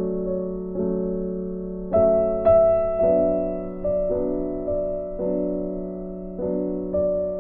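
Background music: slow piano chords, each struck and left to fade, about one new chord a second.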